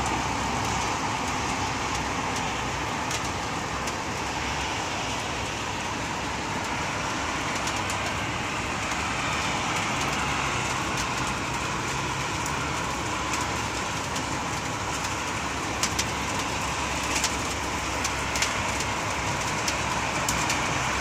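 Steady hiss of distant road traffic across a city, with a few sharp clicks late on.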